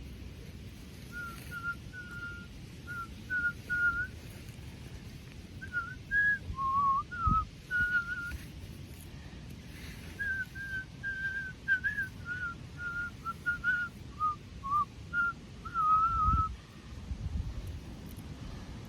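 A person whistling a slow tune in short, pure notes that step up and down, with a low thump about halfway through and another near the end.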